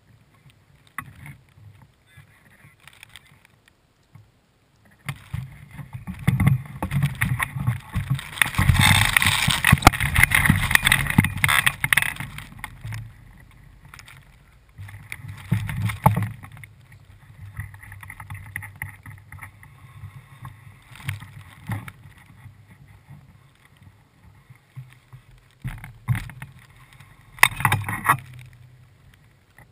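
Wind gusting over a camera lying in grass, rumbling on the microphone with grass rustling against it. The longest, loudest gust comes about five seconds in and eases off after about seven seconds, with two shorter gusts later.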